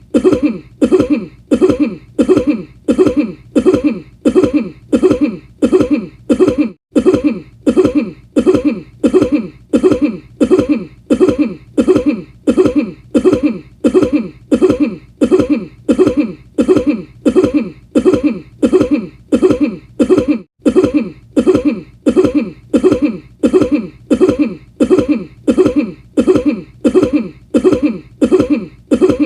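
One cough sound, looped over and over at an exactly even pace, about four identical coughs every three seconds.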